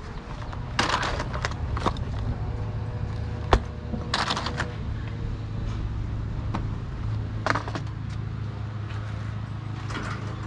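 Short bursts of hard plastic clatter and rustling, with one sharp click about three and a half seconds in, as computer mice are rummaged through in a box. A steady low rumble runs underneath.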